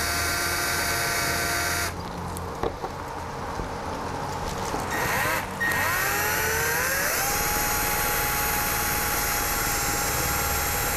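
Milwaukee cordless drill boring a 23/64 in. hole through a switch blank. The motor whine drops away about two seconds in, spins back up with a rising whine a little past the middle, and then runs steadily.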